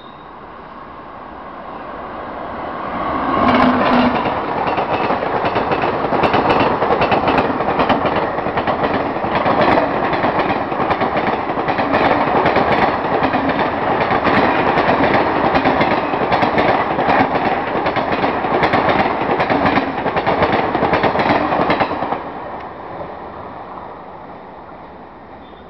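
Passenger train hauled by a WAP-4E electric locomotive running past at speed, with a loud rush and wheels clattering over rail joints. The noise builds over the first few seconds, then drops off sharply near the end and fades as the train moves away.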